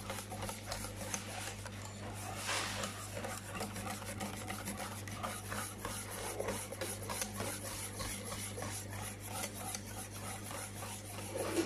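A metal utensil beating an egg and milk mixture in a bowl, with rapid, steady scraping strokes against the bowl.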